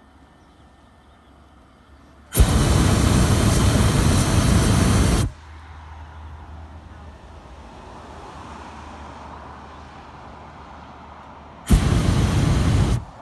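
Hot air balloon's propane burner firing in two blasts: a loud steady rush of about three seconds starting a couple of seconds in, and a shorter one near the end, each starting and cutting off suddenly.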